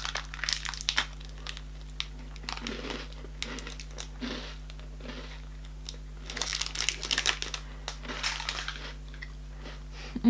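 Plastic wrapper of a chocolate biscuit bar crinkling in the hands, mixed with crunching bites and chewing of the biscuit, in several short crackly bouts.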